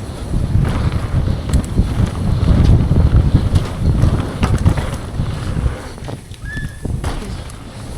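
Wind buffeting the camera microphone while riding a downhill mountain bike at speed, with sharp clicks and rattles of the bike over rough trail. About six seconds in the noise drops away for about a second, with a brief high squeak, before the rumble returns.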